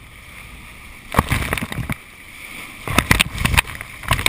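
Colorado River whitewater at very high flow, about 77,650 cubic feet per second, rushing steadily, with loud bursts of splashing about a second in and again around three seconds in.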